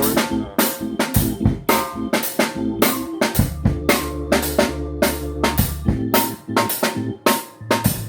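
A band playing a song: a drum kit keeps a steady beat of bass drum and snare hits over sustained bass notes and chords.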